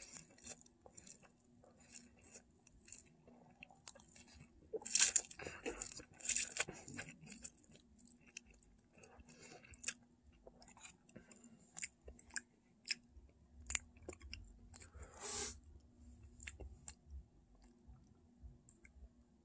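A person slurping in and chewing a mouthful of instant cup ramen noodles, with many small wet mouth clicks and smacks. There are louder bursts of mouth noise about five seconds in and again around fifteen seconds.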